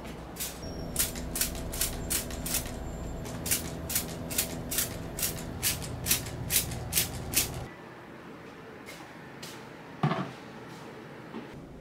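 A quick series of sharp clicks, roughly three a second, over a steady hum. Clicks and hum stop together a little past halfway, and a single knock follows near the end.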